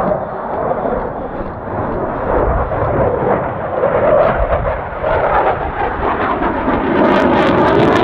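CF-18 Hornet's twin General Electric F404 turbofan engines, a loud, rough jet noise as the fighter flies its display overhead, with a few sharp crackles near the end.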